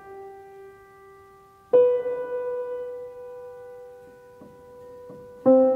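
Slow intro music on piano: a note or chord struck about two seconds in and another near the end, each ringing on and slowly fading.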